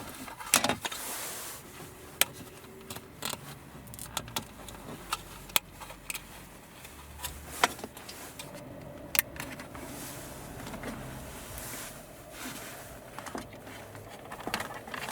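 Sharp plastic clicks and light rattling from red plastic retainer clips being worked off an original car trim cover and pressed into a replacement dash-cam cover. About a dozen clicks come at irregular intervals.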